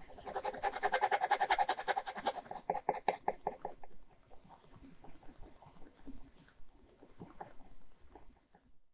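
Ballpoint pen hatching on drawing paper: quick, even back-and-forth scratching strokes, several a second. They are loudest for the first two or three seconds, then go on lighter and softer.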